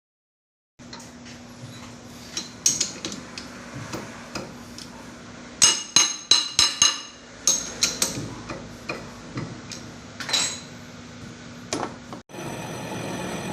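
Metal parts struck by hand tools, a dozen or so sharp clinking hits with short ringing, the loudest a quick cluster about six to seven seconds in, over a steady low hum. Near the end the sound cuts to a steady machine running with several high held tones.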